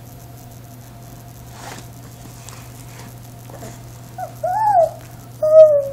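A high-pitched voice making two short hooting 'ooh' sounds: a faint one that rises and falls about four seconds in, then a louder, steadier one near the end.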